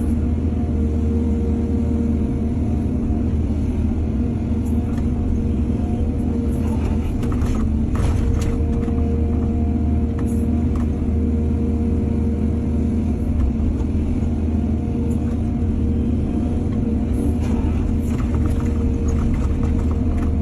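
Excavator's diesel engine running steadily while loading soil onto trucks, with a few short knocks about a third of the way in and again near the end.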